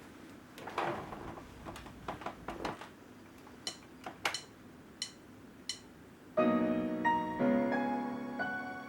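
A few handling clicks and knocks, some with short high tones, then about six seconds in an electronic keyboard starts playing in a piano voice, several notes sounding together and held.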